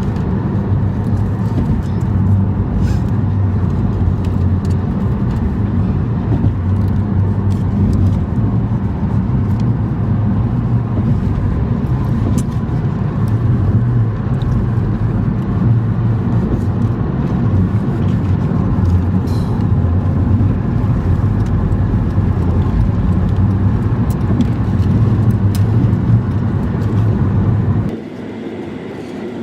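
Steady low road and engine rumble of a car being driven, heard from inside the cabin, which falls away sharply near the end.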